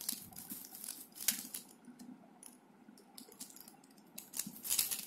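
Plastic gears and layers of a Fangcun Geared Mixup puzzle cube clicking as it is turned by hand: a spell of quick clicks with one sharper click just over a second in, a quieter stretch, then another run of clicks near the end.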